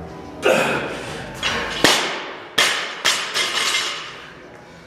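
A 165-pound barbell with rubber bumper plates dropped onto the gym floor after a clean and jerk, hitting hard and bouncing several times with the plates rattling. The loudest hit comes about two seconds in, and the smaller bounces die away.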